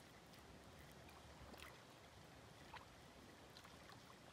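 Near silence: faint water sounds with a few small ticks and splashes. Right at the end a hooked tilapia begins splashing at the water's surface.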